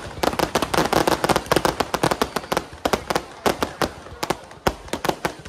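Fireworks going off in a rapid, irregular string of sharp bangs and crackles, several a second.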